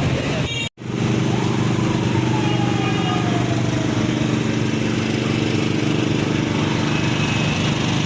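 A small engine running steadily, with street noise around it. The sound cuts out briefly less than a second in, then resumes.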